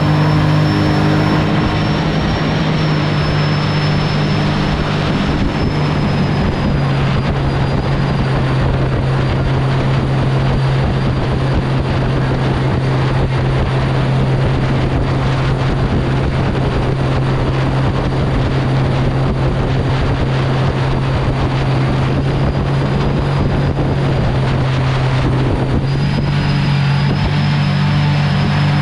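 An engine running steadily at speed: a constant drone over a loud rush of wind and motion noise, its pitch dipping briefly near the end.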